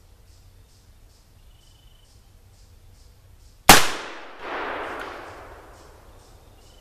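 A single shot from a .44 black-powder cap-and-ball revolver (a Pietta reproduction Colt 1851 Navy), one sharp crack about halfway through, with its echo swelling back about a second later and fading over the next second or so.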